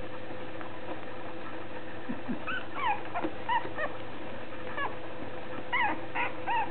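Young puppies whimpering in short, high-pitched squeaky cries, a cluster about two and a half seconds in, a single cry a little later and another cluster near the end, over a steady low hum.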